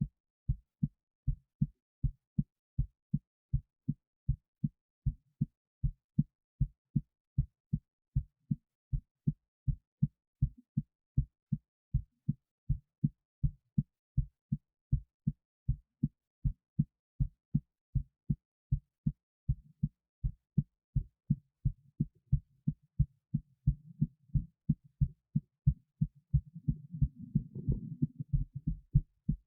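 Human heartbeat heard close up through the chest, an even run of low lub-dub thumps: the uploader's normal, slightly excited heart rate. A low rubbing noise rises under the beats near the end.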